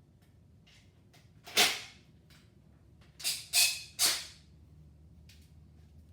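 Four sharp metallic taps on engine parts during piston installation, one about a second and a half in, then three in quick succession a couple of seconds later, with a few faint ticks between.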